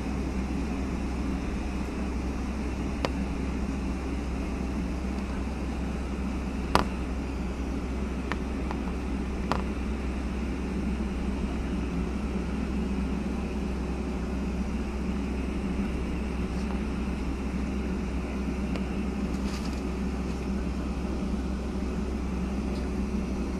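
Steady cabin noise inside a Boeing 757-200 taxiing: the jet engines at low thrust and the cabin air hum, with a faint steady tone and a few sharp clicks, the loudest about seven seconds in.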